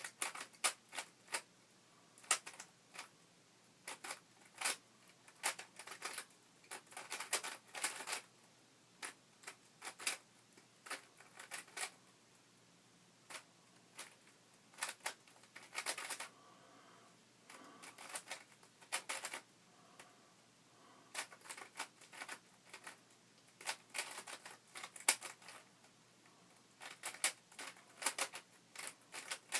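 Shengshou Aurora speedcube's plastic layers being turned by hand during a solve: quick bursts of rattling clicks, broken by brief pauses between sequences of turns.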